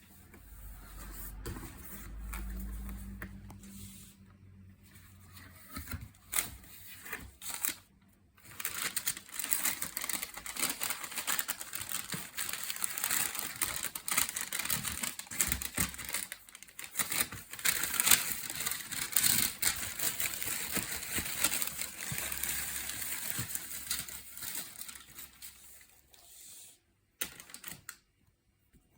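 Shoebox packaging being handled: cardboard and tissue paper rustling and crinkling, with scattered clicks and knocks. It is loudest and busiest from about eight seconds in, and stops shortly before the end.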